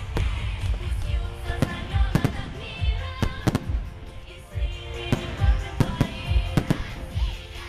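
Fireworks salute going off, about a dozen sharp bangs at irregular intervals, some close together, with music playing along.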